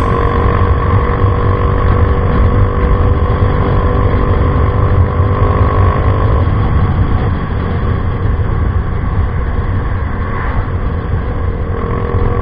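Yamaha Mio i 125 single-cylinder scooter engine running through an Apido Pipe V3 aftermarket exhaust while being ridden, with a dense low rumble. Its steady tone fades about six and a half seconds in and returns near the end.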